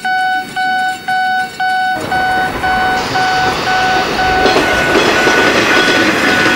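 Railway crossing signal's electronic warning beeper sounding one steady pitch, just under twice a second. From about two seconds in, the noise of an approaching train comes in beneath the beeps and keeps growing louder.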